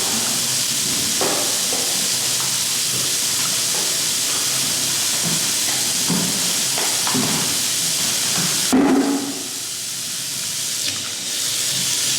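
A steady hiss with a few soft knocks. About nine seconds in there is a sharp knock, after which the hiss drops back for a couple of seconds before returning near the end.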